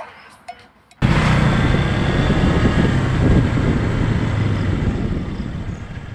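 Motorcycle engine running and wind noise while riding along a road, starting abruptly about a second in after a brief quieter moment, then slowly dropping in level toward the end.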